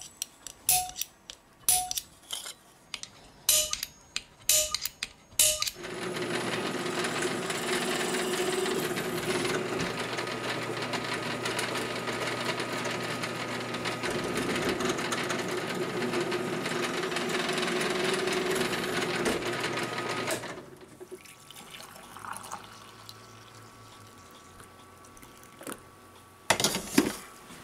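Benchtop drill press running and drilling through aluminium angle, a steady machine hum lasting about fourteen seconds. Before it come a handful of sharp metallic clicks, and near the end there is a short burst of noise.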